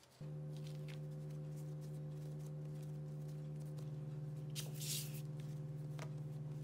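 A steady held low chord of soft background music that changes once about four seconds in, with faint scrapes and taps from a rolling pin rolling out bread dough on a silicone mat and a brief hiss just before five seconds.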